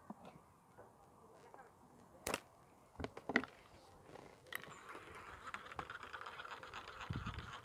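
Fishing tackle being handled at the seat box: a few sharp clicks and knocks, then a steady fine rattle lasting several seconds, with a low thump near the end.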